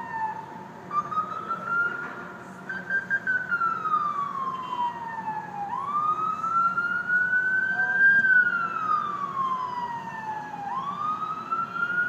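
Ambulance siren sounding a slow wail, rising and falling in pitch with about five seconds per cycle, over a steady rumble of city traffic.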